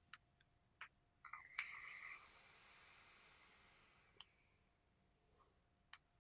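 Faint hiss of a draw through an Altus coilless vape tank on a box mod, with light crackle, lasting about two and a half seconds and fading out. A few soft clicks come before and after it.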